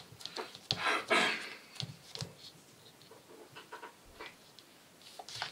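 Soft handling noises of Play-Doh being pressed into and peeled out of a plastic mould: scattered light taps, squishes and rustles.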